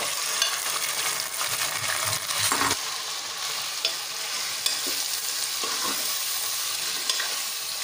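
Raw chicken pieces going into hot oil and browned onions, sizzling as soon as they go in, while a steel ladle stirs them with scattered scrapes and taps against the non-stick pan. The sizzle swells briefly about two and a half seconds in.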